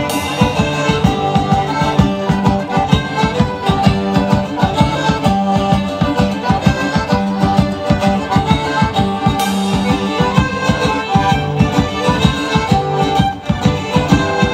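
Folk dance band playing an instrumental tune led by accordions, with a steady, driving beat.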